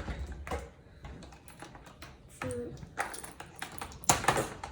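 Small plastic toy pieces clicking and tapping as they are handled on a plastic playset, in irregular knocks, with a louder clatter of several clicks near the end.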